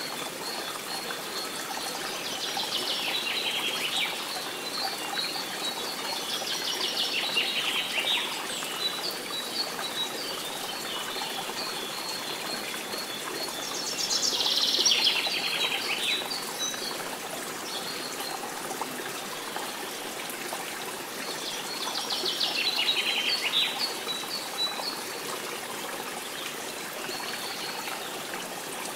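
Songbird chirping in bursts of rapid trilled notes every several seconds, over the steady rush of a flowing stream: a nature ambience of birdsong and running water.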